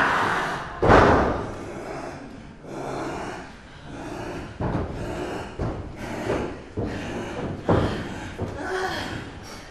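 Pro wrestlers' bodies hitting the ring mat: one heavy thud about a second in, the loudest sound, then several lighter slaps and thuds spaced a second or so apart.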